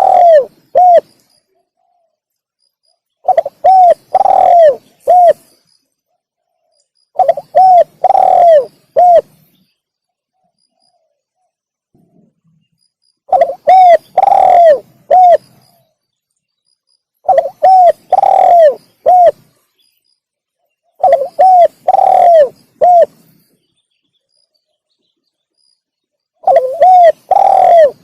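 Spotted dove (tekukur) cooing, the same phrase repeated about every four seconds: two short coos, a longer falling coo, then a short closing coo, with silence between phrases.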